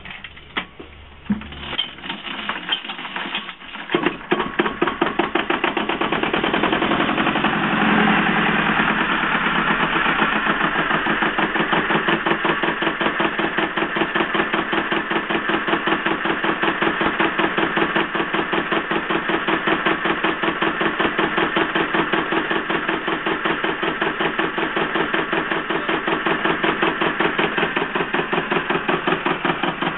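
Freshly rebuilt Kelvin P2R two-cylinder marine diesel being started on its first test run. A few knocks come as it is turned over, then it fires about four seconds in and settles into a steady, evenly beating run.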